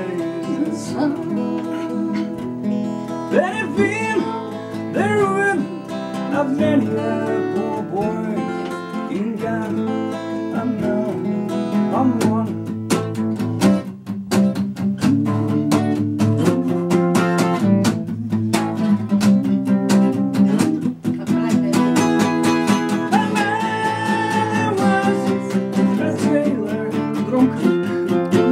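Steel-string acoustic guitar: a picked melody at first, then strummed chords from about twelve seconds in.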